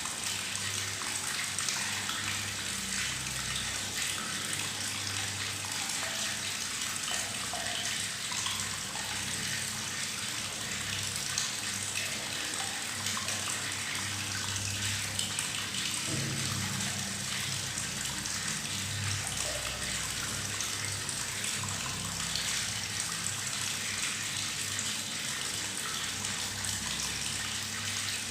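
Tap water running steadily into a bathtub, gurgling and bubbling as it falls into the water.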